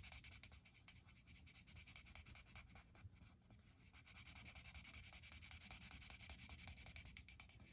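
Faint marker strokes on paper, quick back-and-forth rubbing while colouring in, steadier from about four seconds in.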